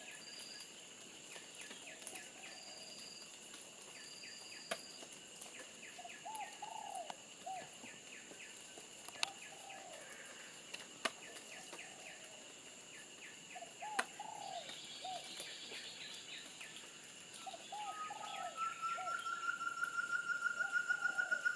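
Tropical forest ambience: insects keep up steady high-pitched tones while a bird repeats short arched calls in twos and threes every few seconds, with a few sharp clicks. From about three-quarters of the way in, a rapid pulsing trill starts, rising slightly in pitch and growing louder.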